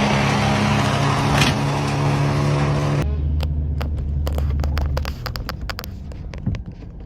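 A motor runs steadily for about three seconds. The sound then changes abruptly to a low hum and a series of sharp cracks and snaps.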